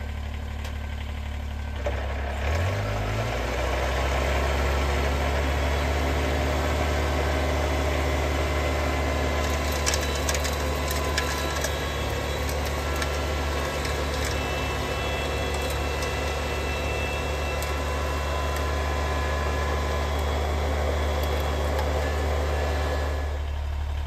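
Kubota BX2380 compact tractor's diesel engine running with its front-mounted BX2822A snowblower; the engine revs up about two seconds in, then runs steadily under load as the blower throws snow, with a few light clicks around ten seconds in.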